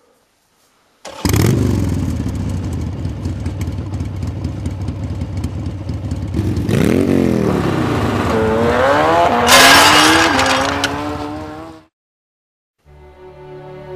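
A motor revving loudly, its pitch falling, rising and falling again, then climbing in steps, with clattering and scraping over it. It starts suddenly about a second in and cuts off suddenly shortly before the end.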